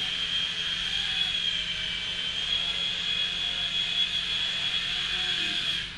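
Twister Mini Sport micro RC helicopter in flight, its small electric rotor motors giving a steady high-pitched whine. The whine dips briefly right at the end.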